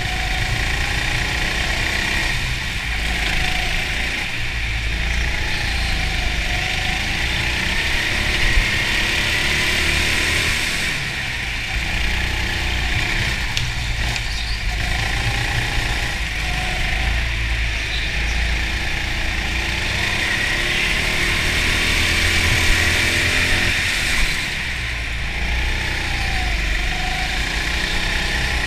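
Racing go-kart heard from onboard, its motor pitch repeatedly rising and falling as it speeds up and slows through the corners, over a steady low rumble.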